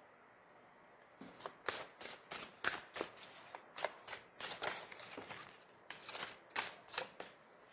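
Tarot deck being shuffled by hand: a run of crisp card snaps, about three a second, starting about a second in, with a brief pause a little past the middle.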